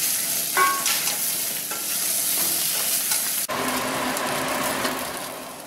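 Drumstick pieces and shallots sizzling in hot oil in a stainless steel kadai while a spatula stirs them, scraping the pan in the first few seconds. After a sudden break the sizzle goes on steadily on its own, fading near the end.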